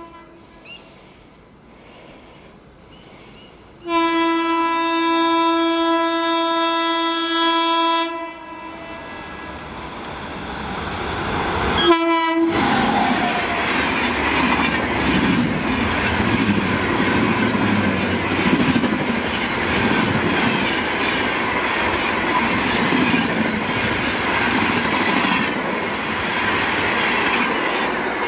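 Indian Railways express train approaching and passing at about 130 km/h: a couple of short horn toots at the start, one long steady horn blast about four seconds in, a short blast as it reaches the track side about twelve seconds in, then the loud rush and clickety-clack of the coaches going past at speed.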